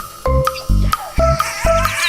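Background music: a bouncy, plucked bass line in short even notes with light high notes above.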